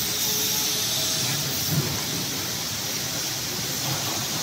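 Steady hiss and hum of automated machinery on a dishwasher-tub assembly line, with a brief low knock a little before halfway.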